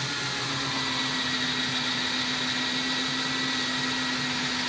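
Cordless drill running steadily under load, its bit boring deeper into a block of 2x4 lumber.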